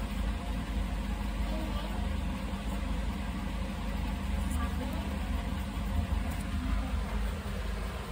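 A steady low mechanical hum, like a running motor.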